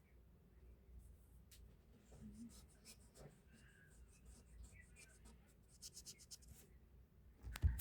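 Faint, irregular scratching and rustling, with a louder bump near the end.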